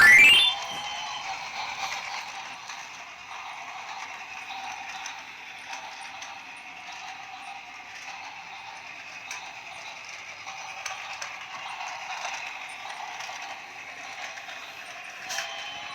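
Small motor and gears of a battery-powered toy train running steadily, an even whir with faint clicks. It opens with a short, loud rising squeal lasting about half a second.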